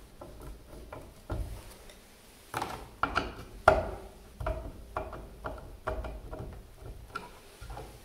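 Hand screwdriver driving the mounting screws of a GFCI outlet into its electrical box: a run of irregular small clicks and scrapes, loudest a few seconds in.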